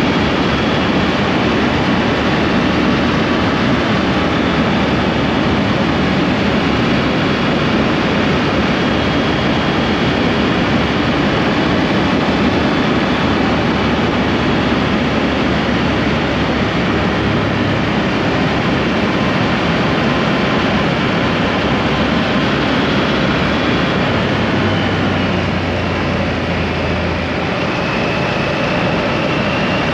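Steady rush of wind on the microphone and road noise from a motorcycle at riding speed, with the Triumph's engine running underneath; the level eases slightly near the end.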